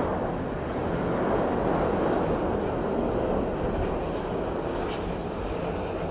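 Airbus A350's Rolls-Royce Trent XWB jet engines running, a steady rushing noise that swells slightly in the middle.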